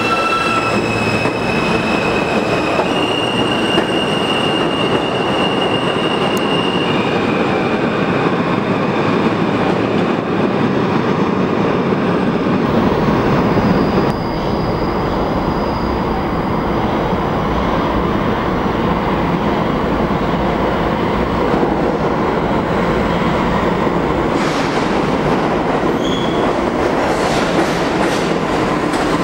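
New York City subway R train pulling out of the station. Its traction motors give a whine that climbs in steps over the first several seconds, over a steady rumble and screech of steel wheels on the rails as it runs off down the tunnel.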